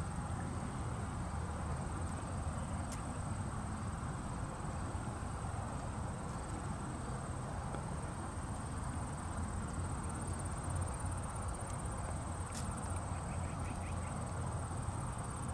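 Steady outdoor background noise: a low rumble with a thin, continuous high-pitched whine over it.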